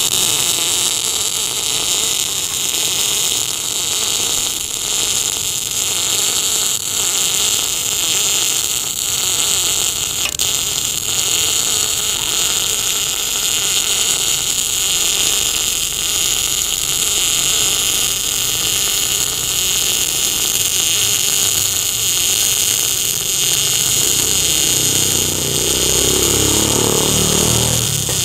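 MIG welding arc from a Tenya NBC-288 welder running a continuous bead: a loud, steady sizzling crackle that starts abruptly and holds on without a break.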